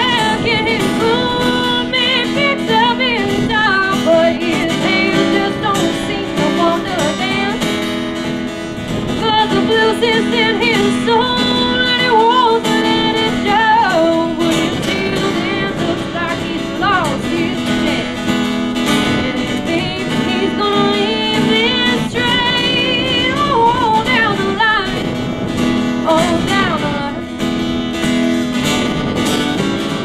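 Acoustic blues played on acoustic guitar, steady chords with a melody line that slides and wavers in pitch over them.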